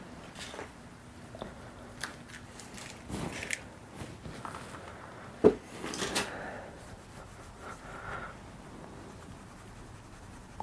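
Handling noises as a cloth rag wipes seeping oil off a painted metal steam-loco cylinder block on a wooden bench: brief rubbing and rustling of the rag with scattered small taps and clicks, and one sharp knock about five and a half seconds in.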